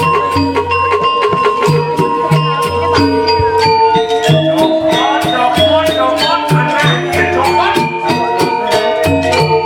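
Balinese gamelan playing dance accompaniment: a fast, even run of metallic strikes over held metallophone tones that step between pitches, with repeated deep low notes underneath.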